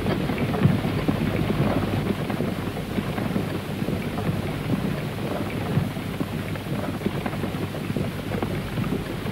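Footsteps of several soldiers crunching and scuffing over rough, grassy mountain ground in a dense run of irregular crackles, over a steady low rumble.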